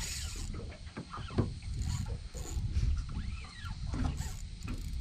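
Wind buffeting the microphone while a hooked bull shark is played on a light spinning rod and reel, with scattered clicks from the reel and line. A whistle-like call rises and falls about three seconds in.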